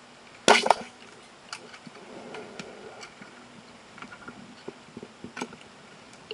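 Labrax 90 Double speargun fired underwater: a sharp double clack about half a second in as the shaft is released, followed by a few fainter clicks and taps.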